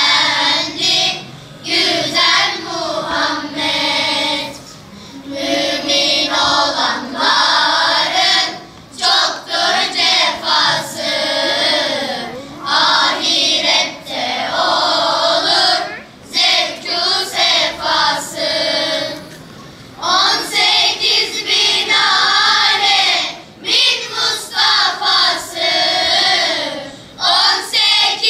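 Children's choir singing together in long sung phrases, with short breaks between phrases every few seconds.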